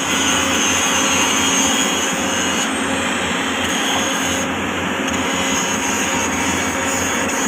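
Power grinder running steadily on steel rail ends, grinding the joint faces in preparation for flash butt welding.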